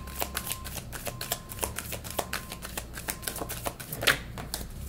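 A tarot deck being shuffled by hand: a rapid, even run of card flicks, about seven or eight a second, with one louder snap near the end.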